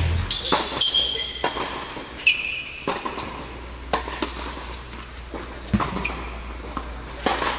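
Tennis rally on an indoor hard court: sharp racket strikes and ball bounces at uneven intervals, mixed with brief high squeaks of sneakers on the court surface.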